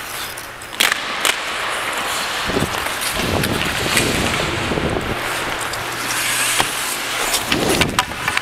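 Ice hockey skates scraping and carving across the ice as a player skates, with a steady hiss. Two sharp hockey-stick clacks come about a second in at the faceoff, and several more clacks come near the end.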